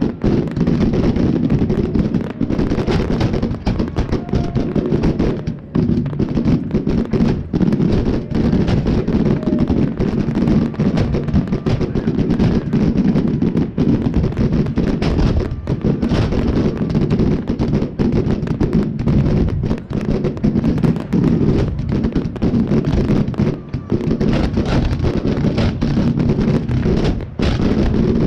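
Fireworks display: many shells launching and bursting in quick succession, the bangs overlapping almost without a break.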